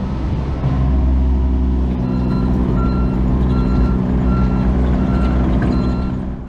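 A compact construction machine's engine running, with its reversing alarm beeping about once every 0.7 seconds from about two seconds in.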